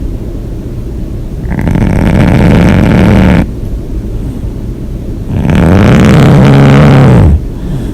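A person snoring loudly: two long, rough snores about four seconds apart, each lasting about two seconds.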